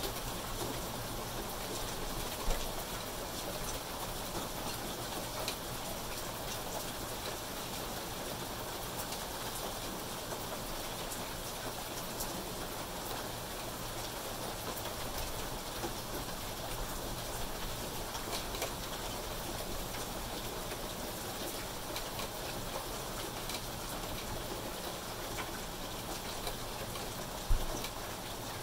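Steady rain falling on foliage, grass and pavement, an even hiss with scattered sharper drop ticks. A single short thump near the end.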